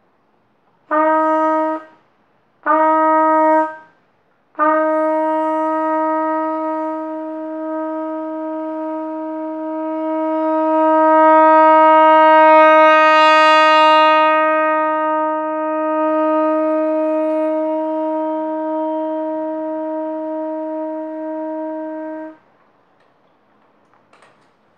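Trumpet playing two short notes, then one long note on the same pitch held for about eighteen seconds. The long note swells louder to a peak in the middle and fades back down before it stops: a long-tone exercise in sound production.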